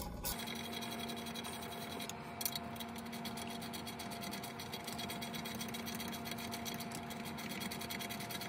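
Faint rubbing and scraping as gloved hands fit hoses and parts around a macerating toilet's pump, over a steady faint hum.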